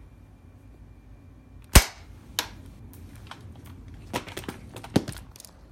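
An airsoft pistol fires a single sharp shot about two seconds in, followed by a few lighter clicks and knocks.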